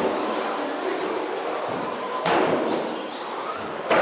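Electric radio-controlled racing trucks running on an indoor track. There is a thin, high motor whine that rises and falls early on, and three sudden thumps and clatters as the trucks hit the track, at the start, a little past halfway and near the end.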